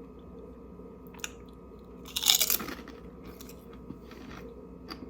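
Crunching on a thick kettle-cooked dill pickle potato chip: one loud burst of crunching about two seconds in, with a few faint crackles before and after.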